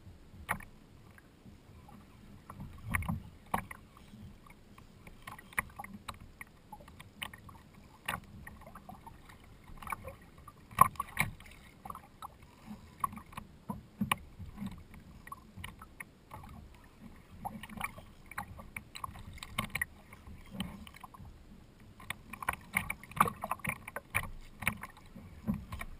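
Choppy water slapping against a plastic sit-on-top kayak's hull, with irregular knocks and clicks from the boat and from the rod and reel being worked against a hooked fish.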